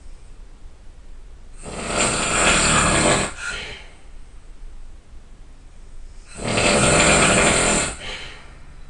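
A person snoring loudly: two long snores, each lasting about a second and a half and coming about four and a half seconds apart, each trailing off into a softer breath.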